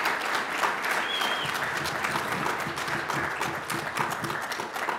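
Audience applauding steadily after a speaker's closing line.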